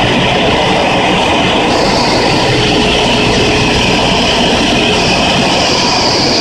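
Steady drone of a Cessna 172's engine and propeller, with wind noise, heard inside the cabin in flight. A higher hiss joins in about two seconds in.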